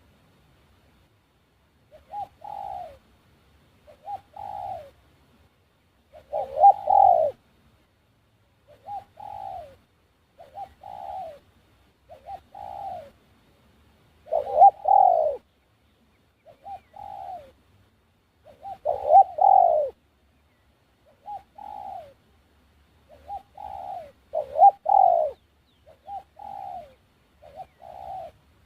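A dove cooing over and over, one short phrase that falls in pitch about every two seconds, with every third or fourth phrase louder.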